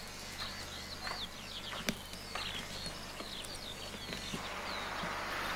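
A small songbird singing quick, high chirps and trills for the first four seconds or so. A few sharp crunches of footsteps on gravel come through it, the loudest about two seconds in.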